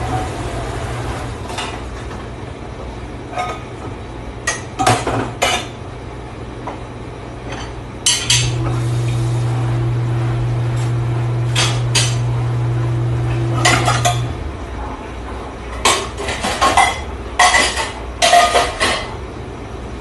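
Stainless steel pots, bowls and utensils clattering and clinking in bursts as they are handled and stacked at a dish station. Underneath runs a steady machine hum that gets louder for about six seconds in the middle.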